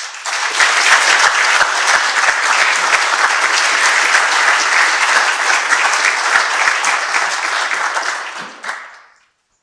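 Audience applauding, steady for about eight seconds and then dying away near the end.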